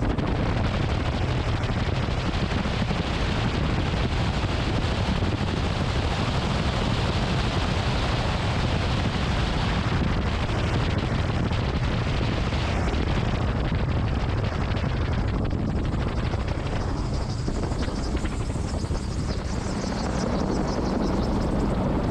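Open-cockpit gyroplane landing: loud, steady rush of wind, rotor and engine noise buffeting the microphone through touchdown and the rollout on a grass strip, easing a little in the last few seconds as it slows.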